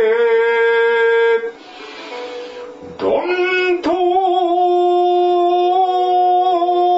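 A male shigin chanter holding long, steady drawn-out notes in the slow Japanese poetry-chanting style, breaking off about a second and a half in and starting a new long held note about three seconds in.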